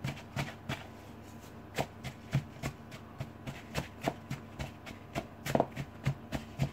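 Wooden spoon knocking and scraping against a plastic mixing bowl as butter and caster sugar are beaten together by hand, in irregular knocks two or three a second. The butter is still stiff, not quite soft enough to cream easily.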